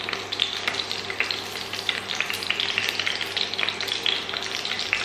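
Hot oil sizzling in a frying pan with many small crackling pops as mince-stuffed long red chillies are laid in to fry.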